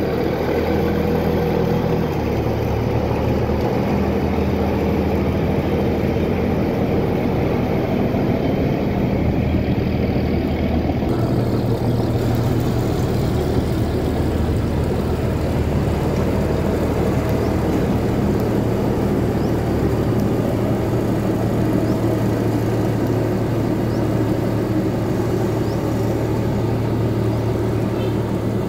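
A sand boat's engine running steadily while the boat is under way.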